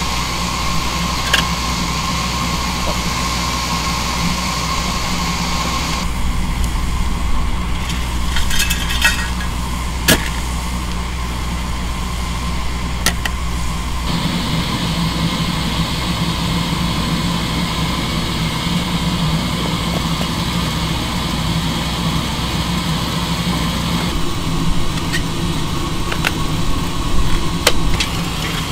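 Steady mechanical hum of machinery running while a live steam locomotive is fired up, with a few sharp metallic clicks between about eight and thirteen seconds in and again near the end. The hum's tone shifts abruptly about six and fourteen seconds in.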